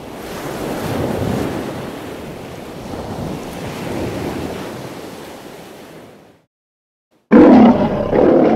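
Ocean surf washing in twice and fading out. After about a second of silence, a man's very loud yell starts near the end.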